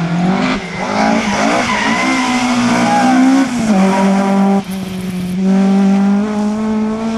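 Ford Escort Mk2 rally car's engine running hard at high revs, its pitch stepping up and down several times, with a sudden brief drop about four and a half seconds in.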